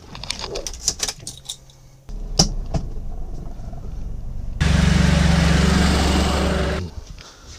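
A few clicks and knocks from handling a car door, then a small car's engine starts about two seconds in and idles with a steady low hum. From about four and a half seconds to near seven it is much louder, with a steady hiss over the hum, as the microphone is held down at ground level beside the car, then it drops back.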